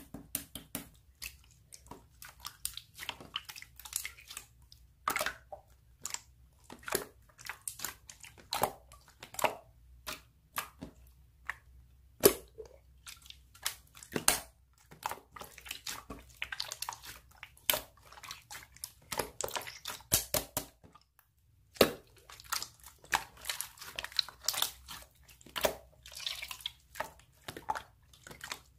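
Slime being squished and worked by hand, an irregular stream of wet sticky clicks and pops, with a short pause about three quarters of the way through.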